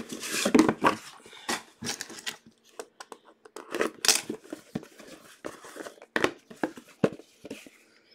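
Cardboard trading-card boxes being handled and opened on a wooden desk, with plastic wrap crinkling: irregular short rustles, scrapes and knocks of cardboard.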